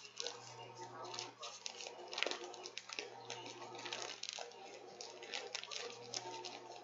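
Spoon clicking, tapping and scraping against a bowl while stirring thick powdered-sugar icing, irregular and continuous, over a steady low hum.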